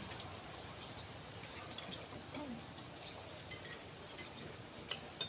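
Spoons clinking against plates and bowls during a meal: a handful of light, scattered clinks, the two loudest near the end.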